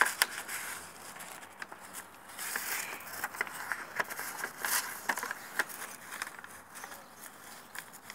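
A sheet of paper being folded and creased by hand: rustling with many short, crisp crackles at irregular intervals.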